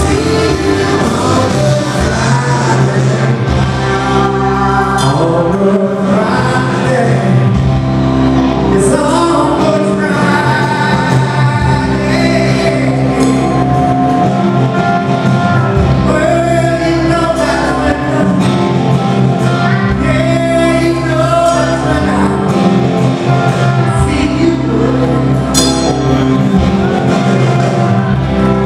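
Rock band playing live with electric guitar and a male lead vocal, recorded from the audience in a large hall.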